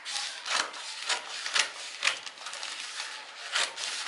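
Scissors cutting through several folded layers of fabric on a table: a run of short noisy snips, about two a second.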